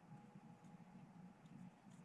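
Near silence: faint steady low hum of room tone, with a faint click near the end.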